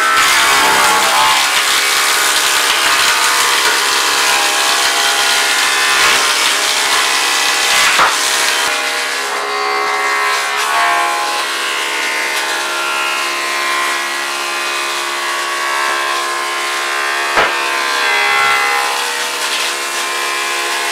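Wood planing machine running steadily with a constant whine while cutting timber, with a sharp knock about eight seconds in and another near seventeen seconds.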